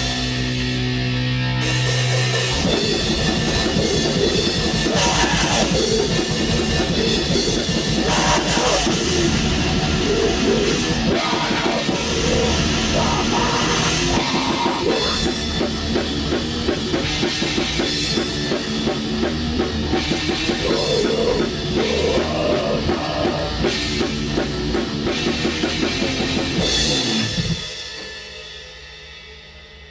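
Black metal band playing live in rehearsal: a fast drum kit with cymbals under heavy, distorted band sound, opening over a held low chord. The band stops together a couple of seconds before the end, and the sound dies away.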